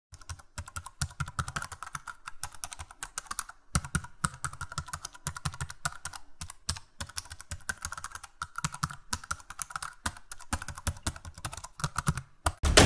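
Computer keyboard typing sound effect: a fast, irregular run of key clicks with a couple of brief pauses.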